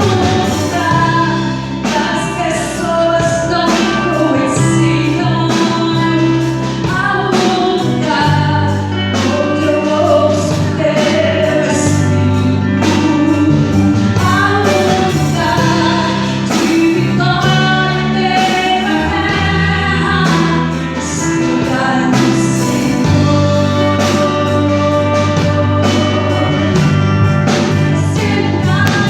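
A band playing a gospel song with a sung lead melody over bass and drums.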